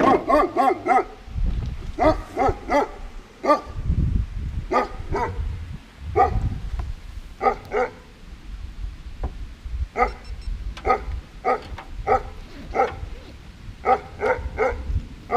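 A dog barking again and again in short runs of quick barks, with pauses between the runs.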